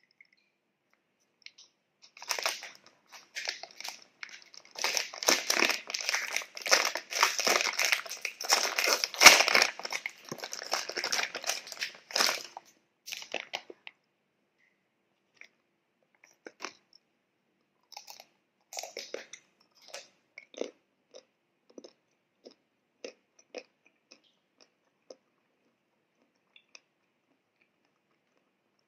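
Magnum Almond ice cream bar's plastic wrapper crinkling loudly for about ten seconds as it is opened. This is followed by a scatter of separate crisp crunches from biting and chewing the bar's chocolate-and-almond shell.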